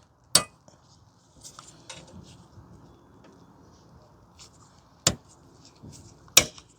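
Sharp plastic clicks and light scraping as a plastic fuel filler door stopper spring is worked onto its mount at the fuel door. Three crisp clicks, about half a second in, about five seconds in and near the end, with faint scraping and rustling between them.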